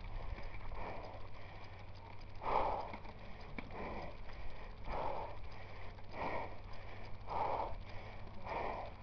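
A person breathing hard and rhythmically, about one breath every second or so, over a steady low rumble.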